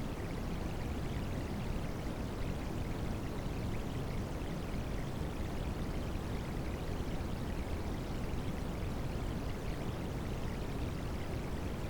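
Recorded rain mixed with white noise: a steady, unbroken rushing hiss, heaviest in the low end.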